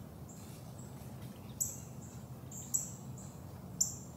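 Short, high bird chirps repeating roughly once a second, three of them louder than the rest, over a steady low rumble.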